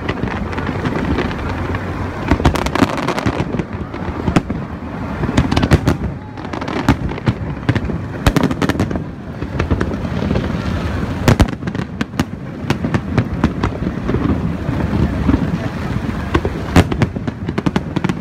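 Aerial fireworks display going off continuously: a constant rumble of shell bursts with many sharp bangs and rapid pops in quick succession, thickest about two thirds of the way in and again near the end.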